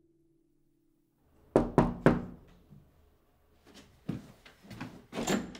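Three quick knocks on a door about one and a half seconds in, then softer thuds and clicks.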